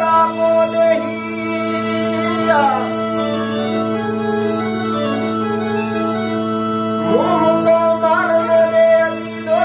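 Sindhi folk song: a steady, held organ-like drone under a singing voice that slides down in a long phrase about two and a half seconds in and climbs up again around seven seconds.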